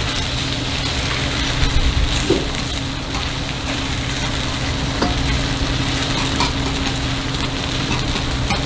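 Takoyaki batter sizzling steadily in a griddle pan, with a few light clicks, over a steady low hum.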